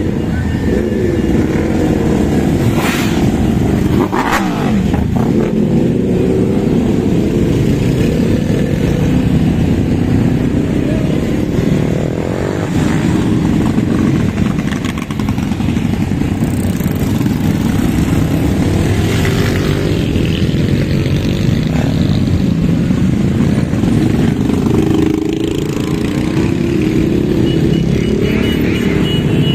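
A slow procession of motorcycles and cars passing close by, many engines running at once with some riders revving.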